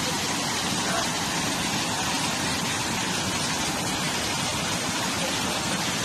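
Waterfall rushing and churning through a narrow rock channel, a steady, unbroken roar of falling water.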